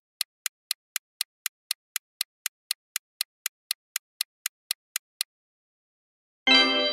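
Countdown-timer sound effect ticking steadily, about four ticks a second for some five seconds, timing the guess, then stopping. About a second later a bright chime rings out and fades as the answer is revealed.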